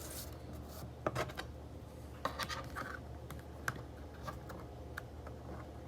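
Pokémon trading card and plastic card sleeve being handled: faint scratching and rubbing with scattered light clicks.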